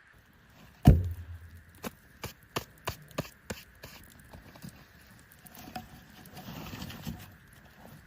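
A heavy thud with a short low ring about a second in, then about six sharp knocks over the next couple of seconds, then a stretch of rustling, over a faint steady hiss.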